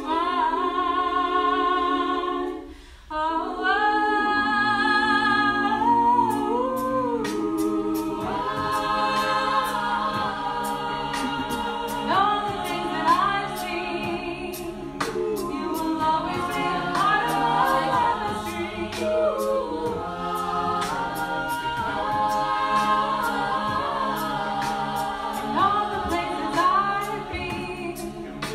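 An a cappella vocal group singing in harmony. Held chords break off briefly about three seconds in, then the voices move on over a steady percussive beat, likely vocal percussion, that comes in around six seconds.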